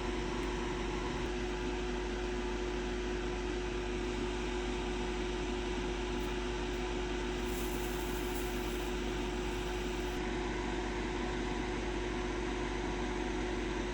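Steady machine hum with an even hiss and one constant tone, like a small fan or appliance running, unchanged throughout.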